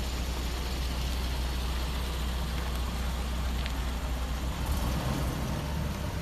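Range Rover SUV driving slowly past at close range: a steady low engine rumble with tyre noise on rough concrete.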